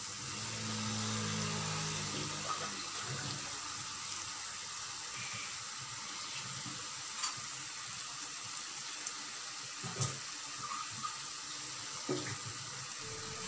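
Onion-tomato masala paste sizzling steadily in a frying pan as raw prawns are dropped in by hand, with a few light clicks.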